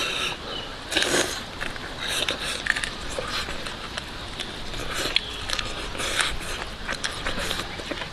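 Chewing and crunching on crispy fried chicken racks, torn by hand: irregular crackling bites and small crunches of the bones, the loudest about a second in.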